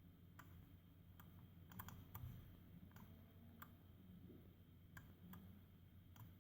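Faint, irregular clicks from working a computer's mouse and keys, about ten of them, over a faint steady low hum.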